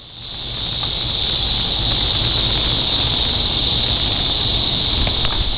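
Cicada buzzing: a steady, high-pitched drone that swells up over the first second, with a low rumble underneath.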